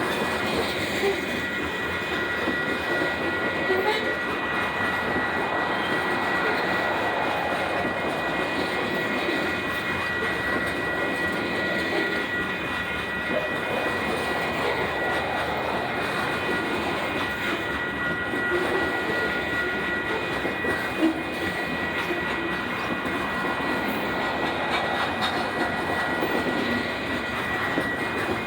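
Union Pacific freight train rolling past, its cars making a steady rolling noise with a thin, steady high-pitched whine over it.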